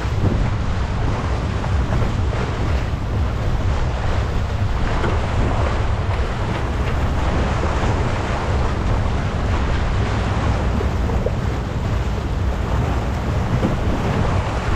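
Steady wind buffeting the microphone over the rush of water along the hull of a Farr 280 racing sailboat under sail.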